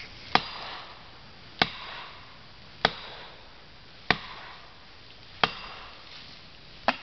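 Felling wedges being driven into the back cut of a 28-inch yellow poplar: six sharp blows about 1.3 seconds apart, each with a short ring. The wedging lifts a tree with heavy rearward lean so it falls in the chosen direction.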